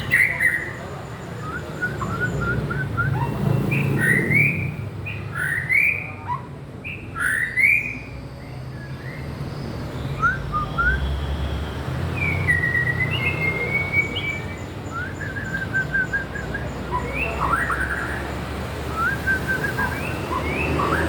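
White-rumped shama (murai batu) singing: repeated loud rising whistles and short rapid trills, over a steady low background rumble.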